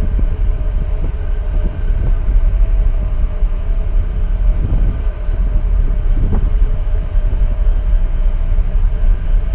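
Steady low rumble of a boat's engine, with wind buffeting the microphone.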